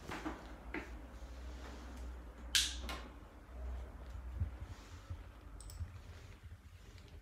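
Faint clicks and rustles over a low rumble, the loudest a short scrape about two and a half seconds in: handling noise from a hand-held phone camera being moved back in a quiet room.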